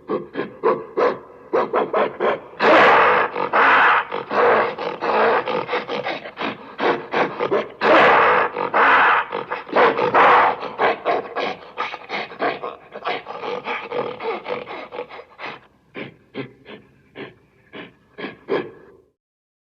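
Giant-ape creature sound effect: a fast run of short rhythmic grunting pulses that swells into louder, denser roaring in the middle, then thins back to separate grunts and stops shortly before the end.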